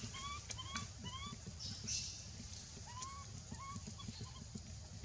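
Baby monkey calling in a series of short, rising squeaks: several quick ones in the first second, then two more spaced out about three seconds in. A few faint clicks can be heard among them.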